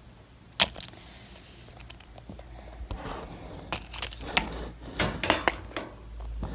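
Small plastic Littlest Pet Shop toy figures and accessories being handled and moved about on a surface: scattered clicks and taps, a quick cluster of them about five seconds in, with light scraping and rustling between.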